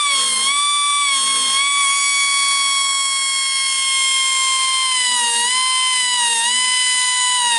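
Air-powered grinder whining at high speed as it sharpens the teeth of a sawmill band blade. Its pitch sags briefly each time it is pressed into a tooth, three times in the second half.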